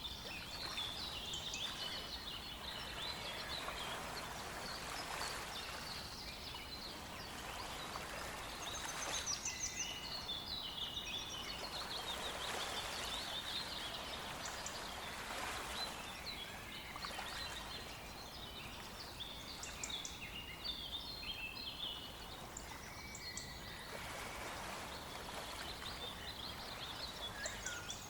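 Several songbirds singing in short, overlapping chirping phrases, over the steady rush of a small stream.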